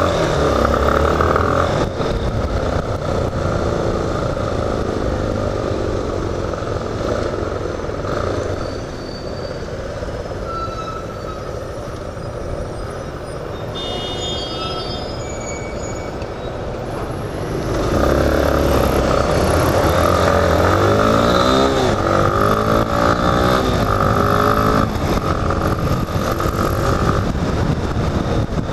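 Yamaha XTZ 250 Lander's single-cylinder engine running under way. It goes quieter through the middle, then about 18 s in it gets louder, with the engine pitch rising and falling as it accelerates and shifts.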